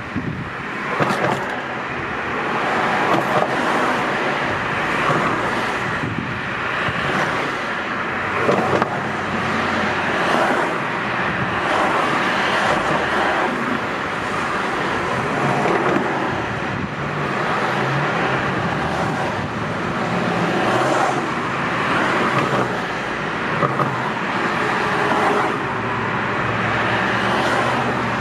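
Road traffic on a multi-lane street: a steady hiss of tyres and engines that swells and fades as cars drive past one after another.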